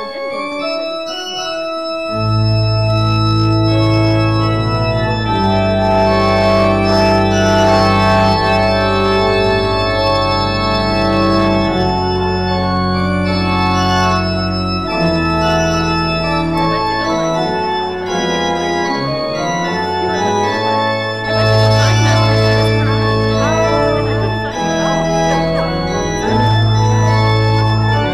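Church organ playing the postlude: slow, long-held chords, with deep pedal notes coming in about two seconds in and dropping away briefly before returning near the end.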